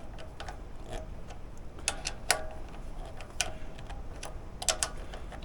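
Irregular light clicks and taps, about a dozen, from small parts and the choke linkage being handled during reassembly of a small Honda engine's carburetor, over a low steady hum.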